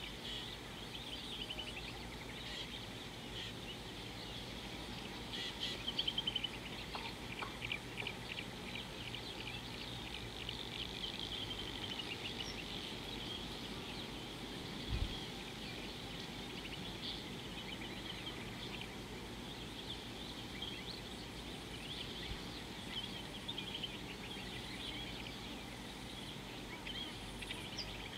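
Birds chirping and calling in a dense, continuous chorus over a steady background hiss, with a brief low thump about halfway through.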